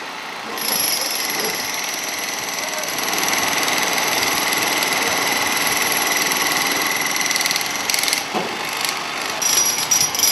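Jackhammer breaking up street pavement, hammering steadily from about half a second in, stopping briefly near eight seconds and starting again near the end.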